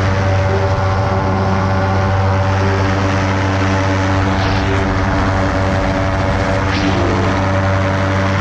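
Ultralight aircraft's propeller engine running at a steady cruise setting, heard from on board as an even droning hum, with wind rushing over the microphone and two short gusts a little after the middle.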